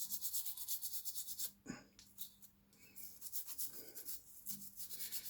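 Toothbrush bristles scrubbing a circuit board in quick back-and-forth strokes, a dry scratchy rubbing that pauses briefly about halfway through, with a single knock in the pause.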